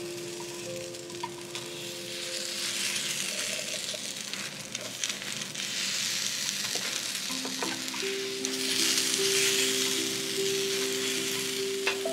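Takoyaki batter sizzling in the cups of a hot electric takoyaki plate while wooden-handled picks stir and turn the balls, with a few light clicks of the picks against the plate. The sizzle grows louder past the middle.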